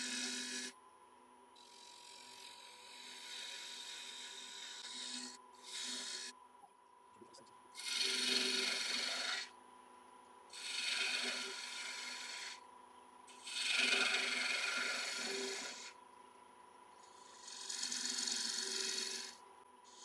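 Gouge cutting a spinning piece of wet cherry on a wood lathe in repeated passes: about seven separate cuts of one to two seconds each, with the lathe's steady hum running between them.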